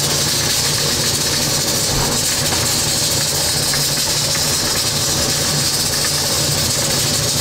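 Steady commercial-kitchen hiss with a low hum underneath, from pots of pork broth on the boil and the kitchen's burners and equipment.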